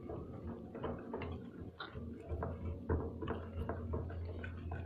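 Wire whisk beating a thick flour-and-egg batter in a bowl, clicking against the bowl in a steady rhythm of about three strokes a second.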